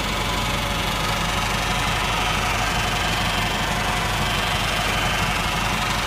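Vehicle running with a steady metallic noise from the automatic transmission, the kind that comes from the torque converter's internal needle bearing; such a noise is almost always a damaged needle bearing, worn from running low on oil or overheating.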